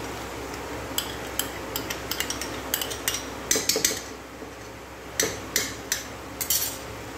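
A metal spoon clinking and scraping against a small steel bowl as cream is scooped out and tapped off into the pan. It comes as a quick run of sharp clinks from about a second in, then a few more near the end.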